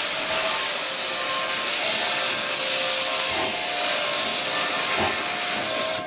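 Small narrow-gauge steam locomotive letting off steam low at its cylinders as it rolls slowly in: a loud, steady hiss that cuts off suddenly near the end.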